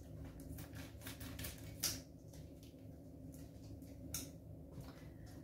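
Quiet room tone: a steady low hum with a few faint, scattered ticks and clicks.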